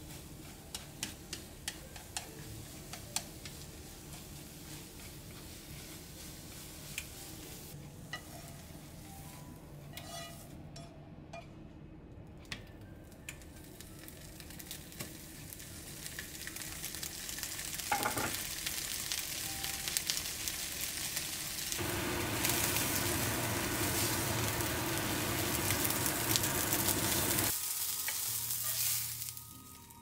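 Wooden chopsticks stirring and tapping scrambled eggs in a nonstick frying pan, many light clicks over soft frying. Then sausages sizzling in a frying pan, the sizzle growing from about halfway and loudest near the end before it stops shortly before the close.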